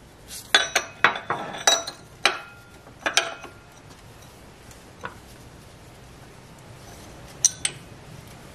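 Metal parts and hand tools clinking and knocking in a car's engine bay as they are handled: a quick run of sharp clinks in the first three seconds or so, one more about five seconds in, and two close together near the end.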